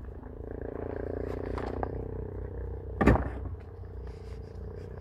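A person's weight and feet on a boat's hull as they climb out over it: rubbing and small knocks, with one loud thump about three seconds in.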